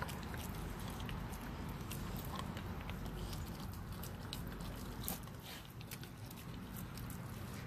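Two Renascence Bulldogge puppies chewing and licking raw fish: irregular wet clicks and crunches of their teeth on the fish, over a low steady rumble.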